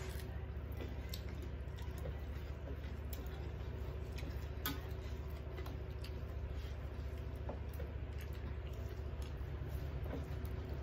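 Eating by hand: fingers mixing rice and curry on steel plates, with soft squelches, scattered small clicks and chewing, over a steady low hum.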